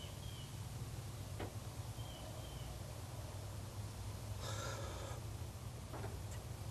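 A person blowing a breath into a smoldering cedar-bark tinder bundle, once about four and a half seconds in, to coax the ember into flame. A steady low hum lies under it.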